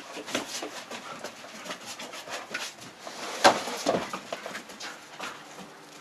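Labrador retrievers' claws and paws clattering and scuffing on a wooden plank deck in quick irregular clicks and knocks, with a louder knock about three and a half seconds in.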